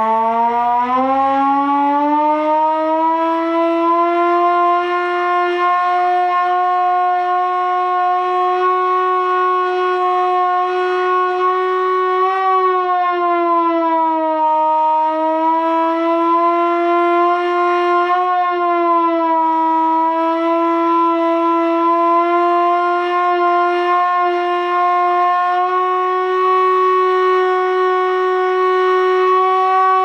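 Small hand-cranked Vixen mechanical siren wound up and held at a steady wail. It dips briefly in pitch twice around the middle as the cranking slows, then comes back up.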